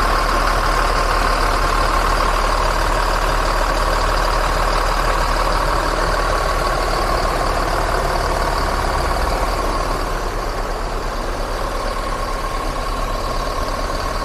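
Mercedes-Benz OH 1526 bus's rear-mounted diesel engine idling steadily, heard close up at the open engine bay, with a constant high whine over the engine note. It gets a little quieter about ten seconds in.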